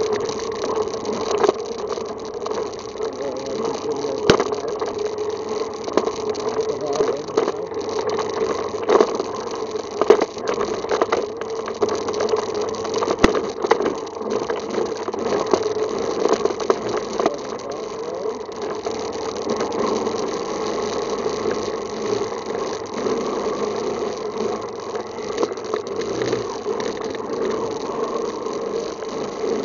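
ATV engine running steadily at low speed, with a rattle and scattered sharp knocks as it creeps over a rough, muddy trail.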